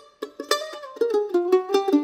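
F-style mandolin played solo: a picked chord rings out about half a second in, followed by a quick run of single picked notes.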